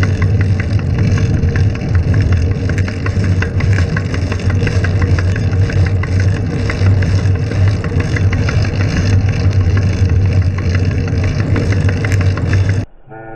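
Loud, steady traffic and road noise with a constant low rumble and crackle, which cuts off suddenly near the end.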